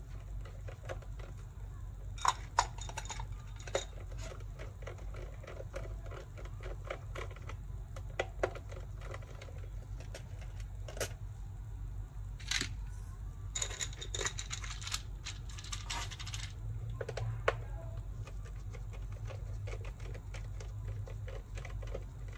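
Scattered small clicks and light metallic taps from a screwdriver and small screws on a laptop's case as it is being unscrewed, with a few louder clicks now and then. A steady low hum runs underneath.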